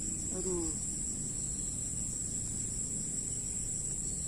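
Insects trilling in a steady, high-pitched, unbroken chorus.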